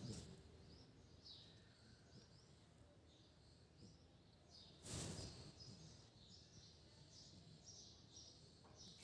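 A sleeper snoring: one noisy snore about five seconds in, lasting about half a second. Faint high bird chirps come and go in the quiet between.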